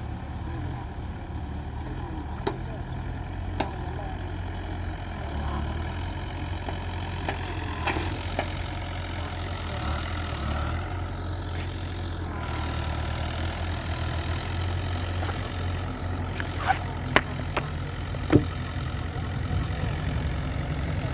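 Excavator's diesel engine running steadily, with a few sharp knocks scattered through and three close together near the end.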